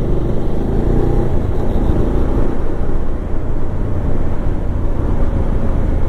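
Motorcycle engine running under way, picking up speed, with a steady low rumble and some rising engine pitch in the first couple of seconds.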